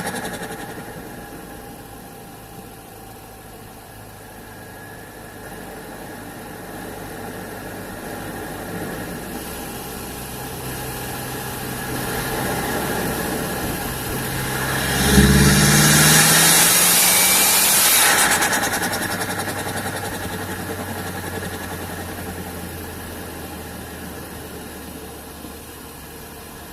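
Intake of a 2007 SEAT Ibiza Cupra's 1.8-litre turbocharged four-cylinder, heard from inside the airbox. The engine runs steadily, then builds to full turbo spool about halfway through, with a loud rushing intake hiss for about three seconds. The sound then dies away gradually.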